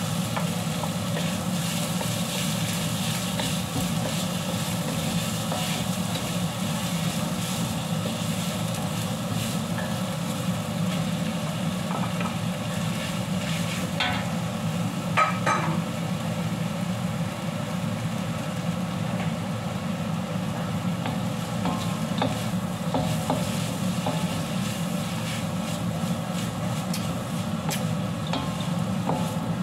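Stir-frying in a carbon-steel wok: a wooden spatula scraping and turning noodles and shredded meat while they sizzle, over a steady low hum. A burst of louder scraping and clatter comes about fifteen seconds in.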